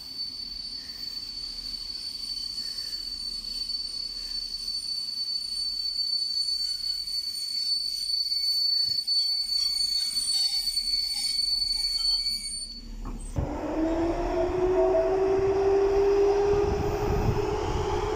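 Passenger train hauled by an electric locomotive pulling out of a station. A steady high-pitched whine for the first part, then about thirteen seconds in the locomotive's motors start with a rising whine over a louder low rumble as the train gathers speed.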